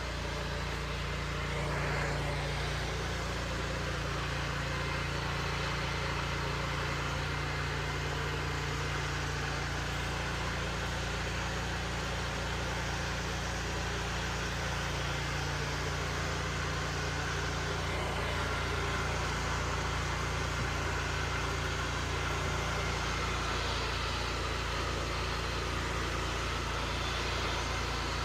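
Pressure washer's engine running steadily at a constant speed, with an even hiss over it.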